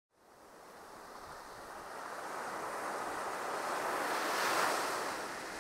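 Surf washing up over sand: the rush of a wave fades in from silence, swells to its peak about four and a half seconds in, then eases back.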